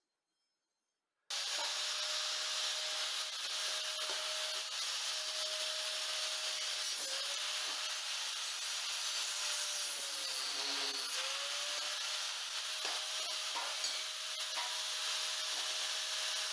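Angle grinder running against the steel sandblaster lid, a steady hiss of the disc on metal that starts abruptly about a second in. The motor's whine sags in pitch under load a couple of times, around the middle, then recovers.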